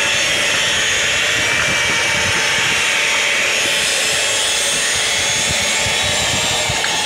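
SS-2000 standing-seam roof seaming machine running along a metal roof panel seam, its motor and forming rollers giving a steady whine over loud, even noise.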